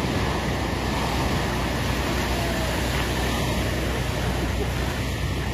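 Steady rushing noise of glacial meltwater pouring away.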